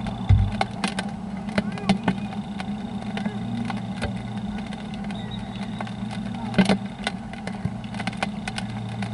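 Steady low engine hum, like a vehicle idling, under scattered sharp taps of raindrops close to the microphone, with a low thump about a third of a second in.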